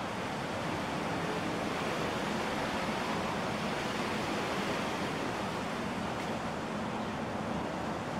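A steady, even rushing noise of the open air, with no distinct events.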